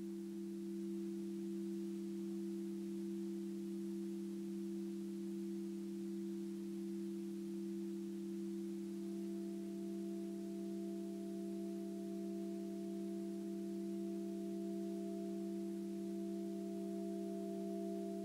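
Live-looped electronic drone: two low tones held steady without a break, with a third, higher tone joining about halfway through.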